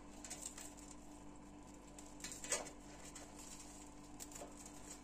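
Freshly baked Ramadan pide torn apart by hand: faint crackling of the crisp crust as it breaks, with a louder crackle about two and a half seconds in.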